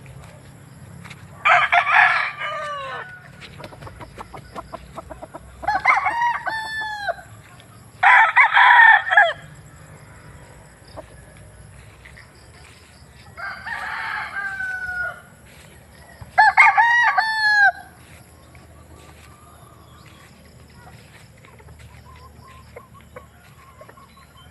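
Roosters crowing: five long crows a few seconds apart, each ending in a falling note.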